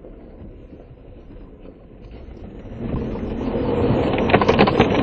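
Jeep Wrangler Rubicon rolling slowly with its engine running, then plunging into a puddle of muddy water about three seconds in: a rising rush of water, with splashes hitting the windshield near the end.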